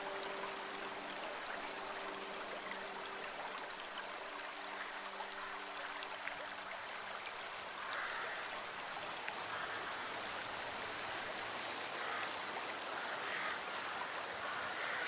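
Flowing stream water, a steady even rush. A soft held low chord of music fades out about halfway through.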